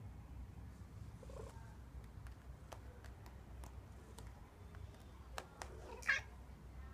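Norwegian Forest cat giving one short, loud call near the end, with a fainter small sound of its own about a second and a half in. Scattered faint clicks come in between.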